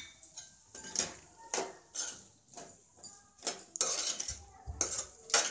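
Long steel spoon scraping and knocking against a metal cooking pan while stirring a dry potato curry, about two strokes a second, with a longer scrape about four seconds in.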